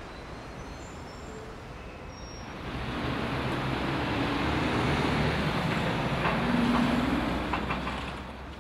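Road traffic with a vehicle passing: a steady hum that swells about three seconds in and fades away near the end.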